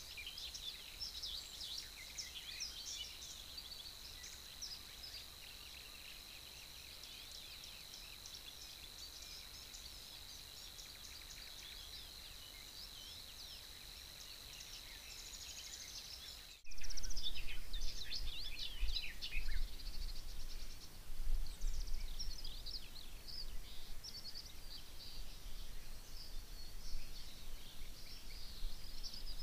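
Songbirds singing, many short chirps and trills overlapping, picked up by a trail camera's microphone, with a steady high-pitched tone under them in the first part. About 17 s in the sound cuts to another recording with more birdsong and a low rumble.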